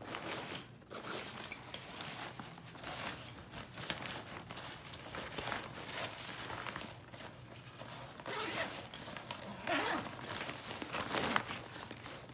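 Thin nylon fabric of a packable backpack rustling and crinkling as it is handled and folded, with a zipper being worked. The louder bursts come in the last few seconds.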